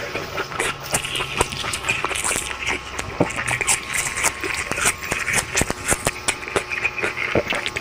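Close-up mouth sounds of ripe mango being eaten: wet chewing, smacking and sucking, heard as a dense run of small clicks and smacks.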